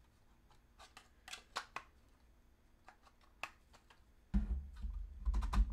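Light clicks and taps of 3D-printed plastic blaster receiver parts being fitted together and handled, the top piece going on. From about four seconds in, a louder low rumble of handling with more clicks.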